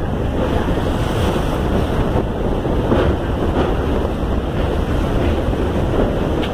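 Wind rushing steadily over the microphone held out of a moving passenger train, with the train's running rumble underneath.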